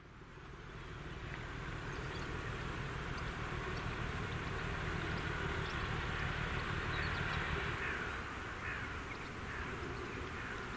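Crows calling over a steady low rumble from a distant diesel locomotive approaching along the line. The sound fades in over the first second or so.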